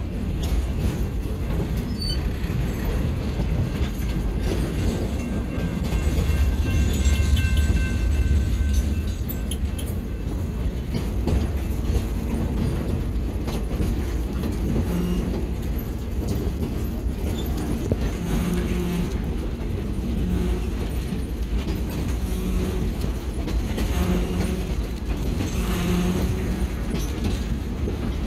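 Passenger train running along the track, heard from an open-air car: a steady low rumble of wheels on rail, swelling a little louder for a few seconds early on.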